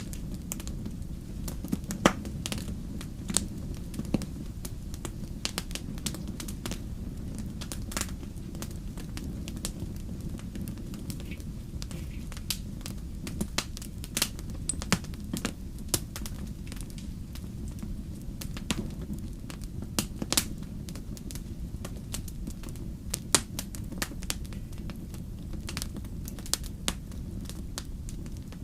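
Wood fire burning, with a steady low rumble and irregular crackles and pops.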